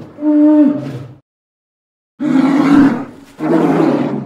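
Polar bear roaring: one pitched roar of about a second, then after a short pause two more roars in quick succession.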